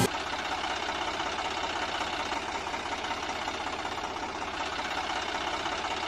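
Homemade remote-control model tractor with its homemade rotavator, its small motors and gearing running steadily with a dense whirring rattle as the tines churn soil.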